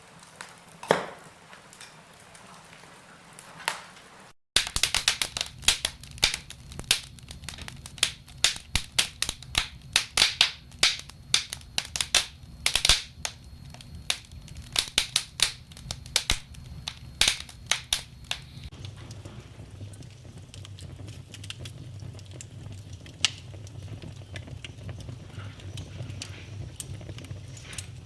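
Wood fire crackling in a fireplace, with scattered sharp pops at first. After a brief gap comes a dense run of loud snaps lasting about fourteen seconds, which eases to occasional pops over a low steady rumble.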